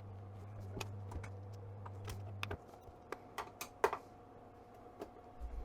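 Scattered sharp clicks and taps of a screwdriver and small screws against the metal case of a Kenwood TS-450S transceiver during disassembly, the loudest about four seconds in. A low steady hum underneath stops about two and a half seconds in.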